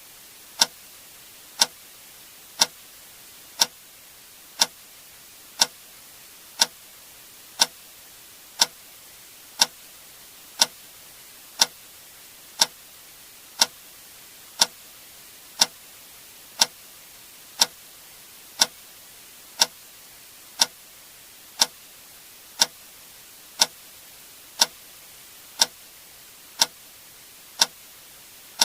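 A single sharp click sound effect repeating steadily once per second, like a metronome or clock tick, over a faint steady hiss.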